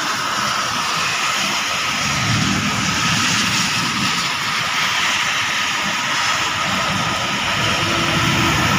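Torrential rain pouring steadily, an even hiss, with a low rumble swelling about two to four seconds in.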